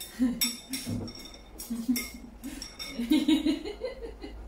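Eating utensils clinking against porcelain dishes as food is scooped from a plate and a bowl: several sharp clinks, each with a brief ring.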